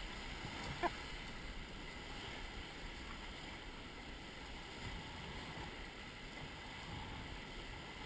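Steady, quiet rush of river water and wind around a drifting raft, with one short knock about a second in.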